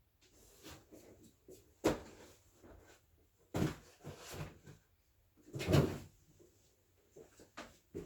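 Cardboard firework assortment boxes being handled and set down: a sharp knock about two seconds in, then two longer thuds with scuffing, with light taps and rustles between.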